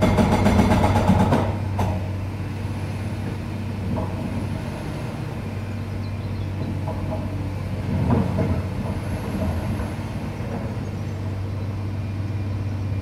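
Pneumatic breaker hammering concrete in a rapid burst for about the first second and a half, then stopping, over a steady low engine hum. Another short rise in the noise comes around eight seconds in.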